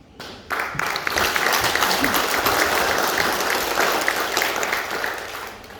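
An audience clapping its hands, starting about half a second in and fading near the end.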